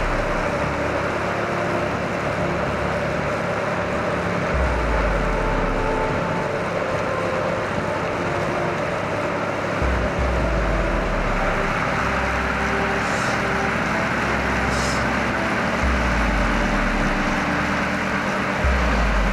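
A motor vehicle running steadily at road speed, with wind rushing over the microphone in low rumbling gusts that come and go every few seconds.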